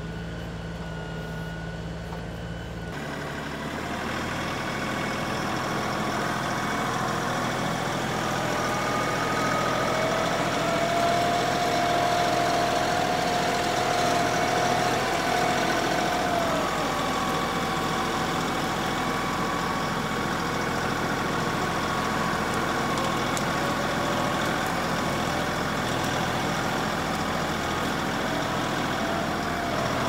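LS XR3135 compact tractor's diesel engine running steadily, heard close up from the tractor, with a higher whine coming in for several seconds in the middle.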